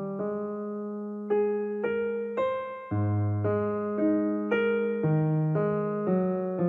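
Background piano music: slow, gentle notes struck one after another over held low notes, each ringing out and fading.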